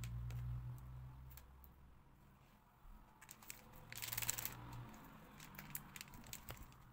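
Plastic bag of stone powder rustling and crinkling as it is handled and opened. The rustle is loudest about four seconds in, with scattered small clicks and taps around it.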